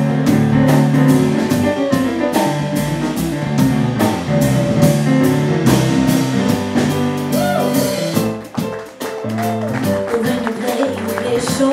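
Live jazz-blues band playing: trumpet and trombone lines over upright bass, keyboard and drums keeping a steady beat. The music drops in loudness briefly about eight seconds in.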